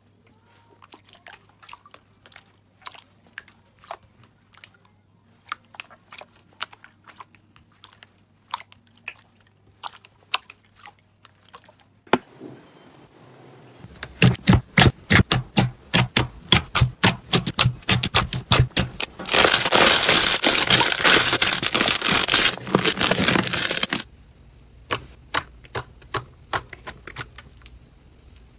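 Slime being handled, making crisp crackling and popping clicks. The clicks are sparse at first, come quick and dense from about halfway, and merge into a loud continuous crackle for about five seconds before thinning out again near the end.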